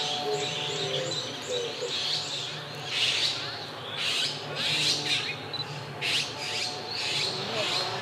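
Male Japanese sparrowhawk giving short high calls repeated about once a second, calling the female to come and take the prey he is holding, with other small birds chirping around it.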